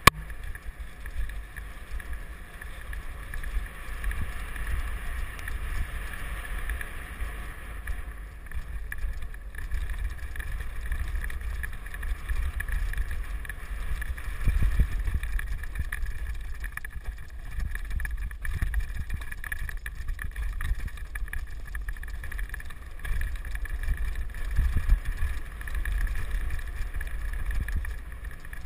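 Wind rushing over the camera microphone and a low rumble from a mountain bike riding a leaf-covered forest trail, with irregular knocks as it goes over bumps, the heaviest about halfway through.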